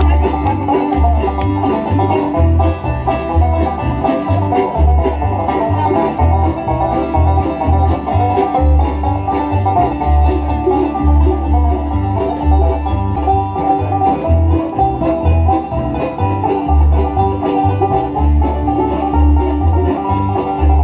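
Live bluegrass music played through a stage sound system, with banjo prominent over a steady bass beat.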